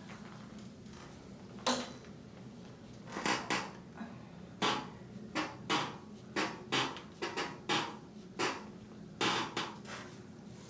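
An irregular series of short rustling strokes, about a dozen, from hands sliding and pressing against the body and clothing during manual therapy, over a faint steady hum.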